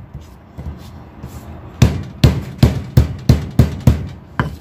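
Galangal root being bruised by hard pounding: after a pause of almost two seconds, a run of about eight sharp, thudding knocks, roughly three a second.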